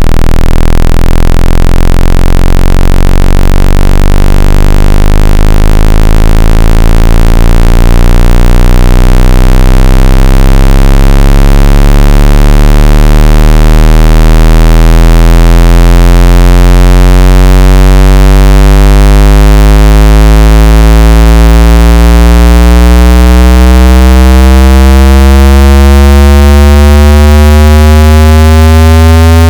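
Extremely loud, heavily distorted synthetic test tone, a buzzy stack of overtones over a deep low hum, slowly sweeping upward in pitch as a hearing-test frequency sweep.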